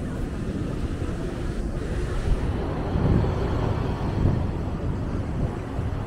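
Wind buffeting the microphone outdoors: a low, uneven rumble that swells about halfway through.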